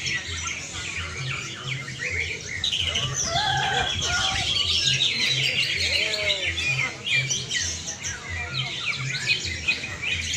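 A chorus of caged greater green leafbirds (cucak ijo) singing at once in competition: dense, overlapping rapid chirps, trills and whistles, with a few lower whistled glides in the middle.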